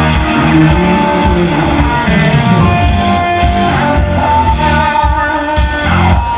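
Live band music played loud through a concert sound system, with guitar over a heavy bass, heard from among the audience.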